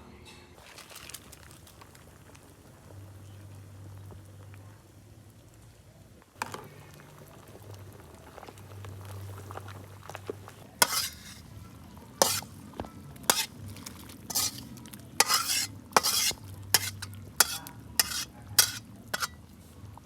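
Food sizzling in a pan while it is stirred. In the second half a spatula strikes the pan again and again, sharp knocks about one or two a second.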